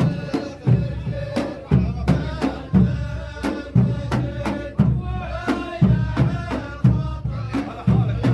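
Traditional Saudi ardah folk music: a chorus of men chanting over a steady drum rhythm, with heavy beats about once a second and lighter strokes between them.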